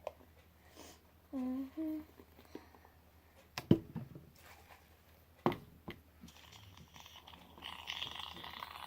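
A person hums two short notes, followed by two sharp knocks a couple of seconds apart and a rising hissing, rustling noise near the end.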